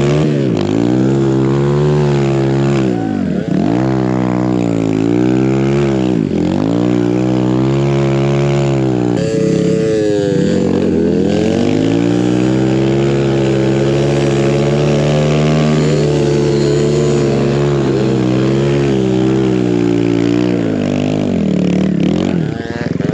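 Kawasaki KLX140 dirt bike with a 170cc big-bore kit, a single-cylinder four-stroke, revving hard under load in deep powder snow. The engine pitch climbs and falls again and again as the throttle is worked, with a few short drops where it eases off.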